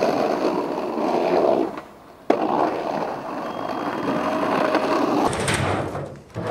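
Skateboard wheels rolling over brick paving, a rough, steady rumble, broken about two seconds in by a sharp clack of the board.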